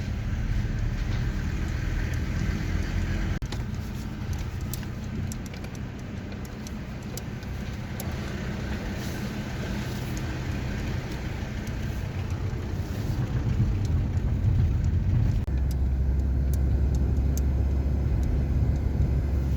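A car on the road, with steady engine and road rumble. About fifteen seconds in the low rumble grows heavier.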